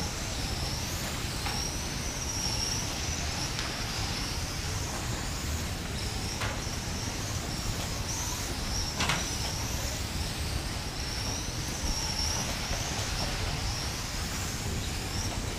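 Several small electric RC racing cars lapping a carpet track, their motors whining in a high pitch that rises and falls as they accelerate and brake. Two sharp clicks about six and nine seconds in.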